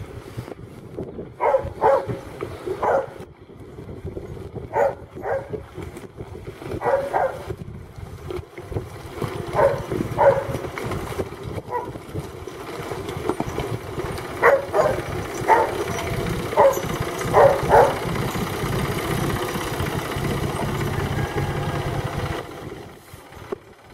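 A dog barking repeatedly, often two barks close together, over the steady running of a John Deere tractor's engine as it pulls a manure spreader by; the engine gets louder near the end as the tractor comes close.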